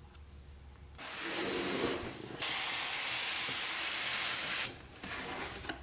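Styrofoam packing blocks scraping against the cardboard box as they are pulled out. It is a loud, even scrape lasting about two seconds, with a few short rustles near the end.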